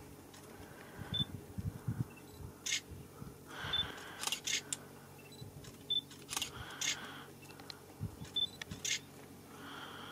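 Camera shutters firing from several cameras: a scatter of sharp clicks at irregular intervals, some in quick runs of two or three, as the leopards are photographed.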